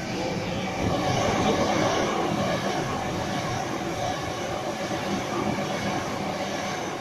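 Two double-deck electric suburban trains, one a Sydney Trains Waratah (A set), passing beneath at once: a loud, steady rush of wheels on rail with a hum of held tones over it, swelling to its loudest about a second in.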